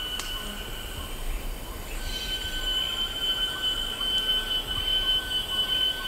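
Cicadas in a mangrove forest: a steady, high-pitched drone of several held tones, growing louder and fuller about two seconds in as more cicadas join, over a faint low rumble.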